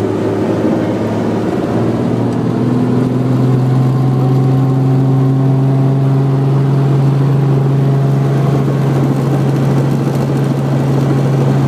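Helicopter engine and rotor running, heard from inside the cabin while it sits on the ground: a loud, steady drone whose pitch rises about two seconds in, then holds.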